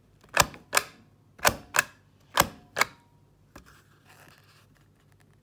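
Shiny Printer S-842 self-inking stamp pressed onto paper three times. Each press gives a pair of sharp plastic clacks about a third of a second apart as it is pushed down and springs back up. A single fainter click follows about a second after the last press.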